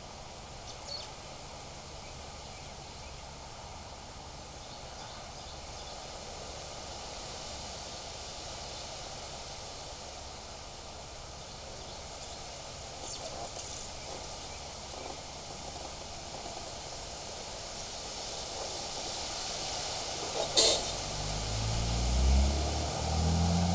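Steady wind noise with a few faint clicks, a sharp click about twenty seconds in, then a motor vehicle's engine hum rising over the last few seconds as it draws near.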